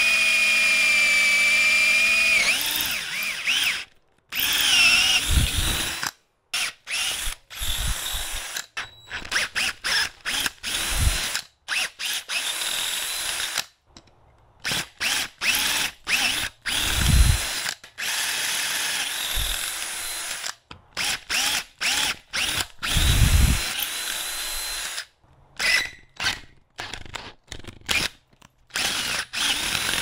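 Power drill boring a bolt hole through a metal plate with a twist bit, enlarging the hole to bolt size. It runs with a steady whine for the first two or three seconds, then goes in many short bursts with brief stops between them as the trigger is pulsed.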